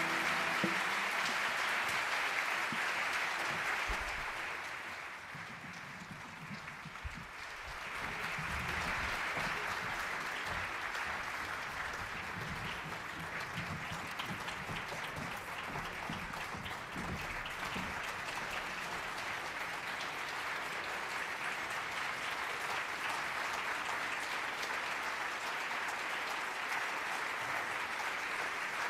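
Theatre audience applauding at the end of a song. The clapping eases off a few seconds in, then swells again near 8 seconds and holds steady.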